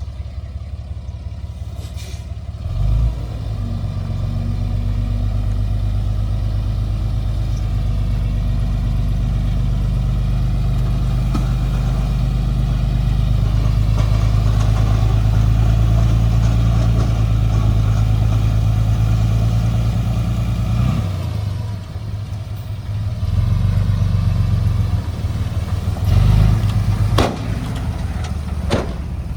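Excavator engine running under load, a steady low drone that swells about three seconds in, eases off briefly around twenty-one seconds, then works up again. A few sharp knocks near the end.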